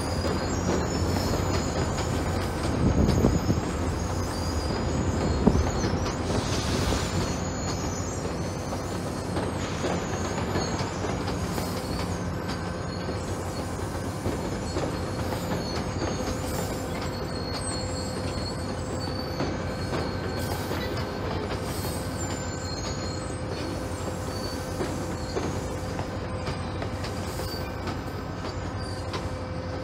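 GO Transit bilevel passenger train rolling past over the station trackwork: a steady rumble of wheels on rail with thin, wavering high-pitched wheel squeal that comes and goes, and a few sharp knocks, the loudest about five seconds in.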